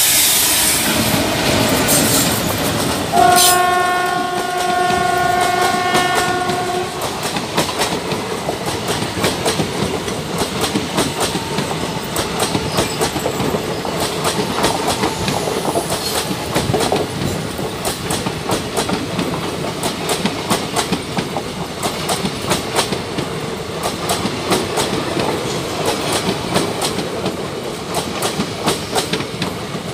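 Mandovi Express passenger train passing close by behind its diesel locomotive. The locomotive's horn sounds one long blast about three seconds in. The coaches then roll past with a steady clickety-clack of wheels over the rail joints.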